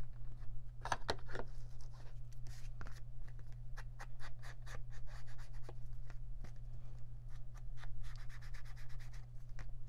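Foam ink blending tool dabbed on an ink pad and rubbed along the edges of a paper journal card, a run of quick, irregular dabs and rubs.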